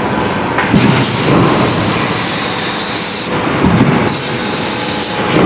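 Hot forging press line running: a loud, steady rumble with hiss over it, and heavy low thuds about a second in and again near four seconds in as the press works the hot billets.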